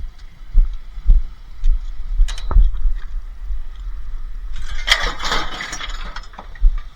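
A scrap box being knocked on and handled, giving a few sharp knocks, then a burst of rattling and clinking about five seconds in. The box is empty.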